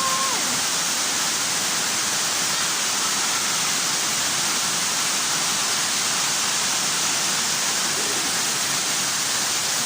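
Heavy rain falling, a loud, steady, even hiss of water.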